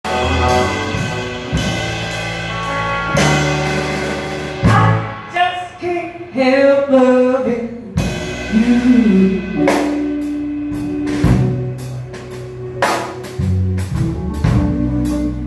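A live band of electric guitar, drum kit and upright bass playing the intro of a song. It is led by electric guitar lines with bent, wavering notes over drums and bass.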